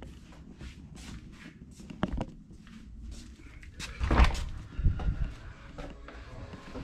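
Footsteps walking, then a door thumping as it is pushed open about four seconds in, with a second bump a second later.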